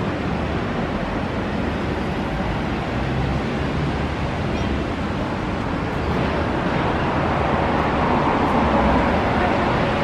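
City street ambience: a steady wash of traffic rumble and urban hum, growing slightly louder near the end.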